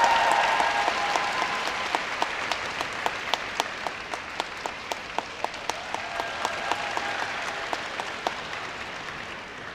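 Audience applause fading away, with one nearby person's sharp claps, about three to four a second, standing out over it for most of its length.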